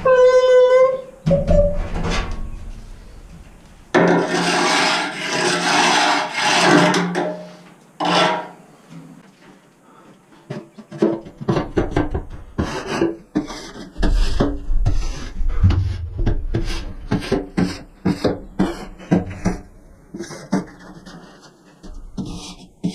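Repeated scraping and rasping: a scraper working sludge and patina off the inside walls of a commercial smoker. A dense run of scraping comes about four seconds in, and many short strokes follow in the second half. A brief pitched squeal sounds at the very start.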